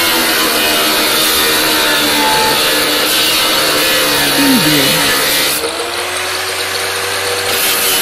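Electric power saw cutting metal: a steady, loud grinding whine with metallic ringing tones. About halfway through, the pitch drops briefly and then climbs back up.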